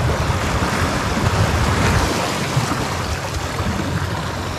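Sea waves washing and surging against the shore in a steady rush, with wind rumbling on the microphone.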